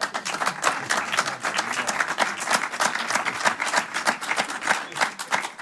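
Live audience applauding, a dense patter of many hands clapping.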